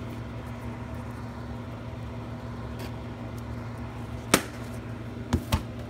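Steady low hum, with one sharp click a little over four seconds in and two softer knocks near the end.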